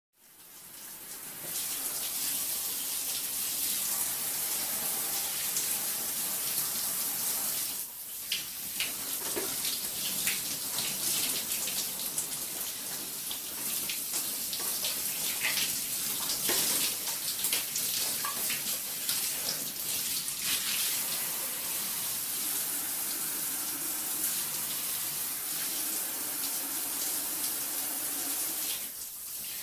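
Shower spray running steadily, water splashing onto a person and a tiled wall. It fades in at the start and dips briefly about eight seconds in and again near the end.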